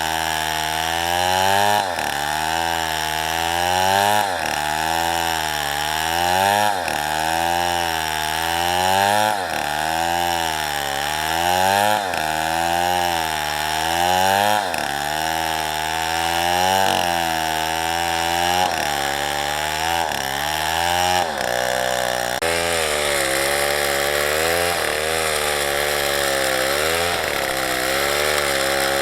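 Small chainsaw cutting into a tree, its engine pitch dipping and rising again about every two and a half seconds as the saw bogs under load in the cut and recovers.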